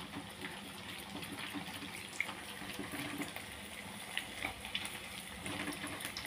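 Rengginang (glutinous rice crackers) deep-frying in hot oil in a wok: a steady sizzle with small crackles, and a few light ticks.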